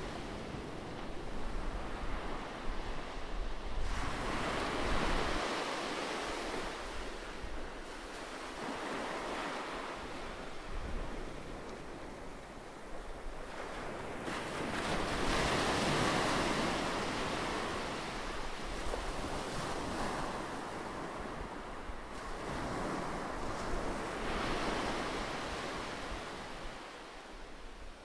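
Rushing noise of surf, swelling and fading as waves wash in every few seconds.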